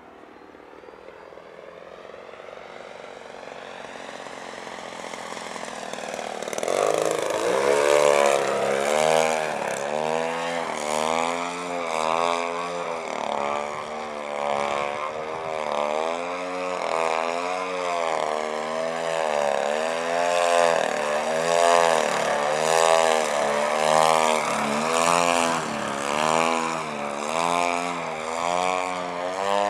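Radio-controlled CA Models Edge 540 aerobatic plane flying on its RCGF-62 two-stroke gasoline engine. The engine note grows from faint to loud over the first six seconds or so as the plane comes in, then runs loud with its pitch wavering up and down about once a second as it flies.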